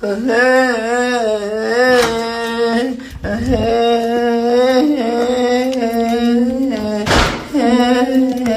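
A man humming or crooning a wordless tune: long held notes that waver up and down, with a short pause about three seconds in. A brief burst of noise, like a knock or rustle, breaks in about seven seconds in before the humming resumes.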